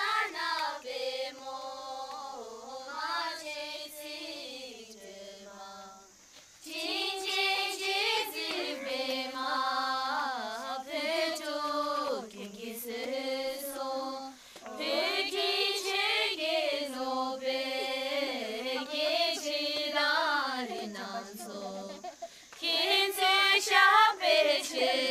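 A group of girls singing a song together, the melody stepping up and down in phrases of several seconds with short breaks between them.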